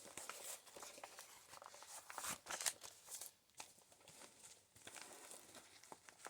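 Paper pages of a handmade junk journal rustling and crinkling as they are handled and turned, with a louder crackle about two and a half seconds in.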